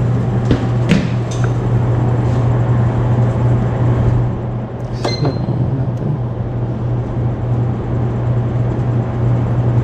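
A steady low machine hum, with a few light knocks from a steel bowl scooping flour and a ringing metal clink about five seconds in as steel bowl meets steel bowl on the scale.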